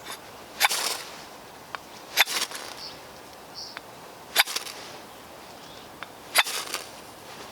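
A ferro rod struck with the blade of a prototype bushcraft multi-tool: four sharp scrapes about two seconds apart. The blade throws sparks, and its back lacks a square 90-degree edge to strike with.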